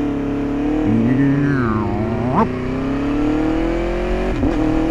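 Aprilia Tuono 1100RR V4 motorcycle engine running under way. Its note dips a little, then climbs steadily as the bike accelerates, with a quick rev that jumps and falls back about halfway through.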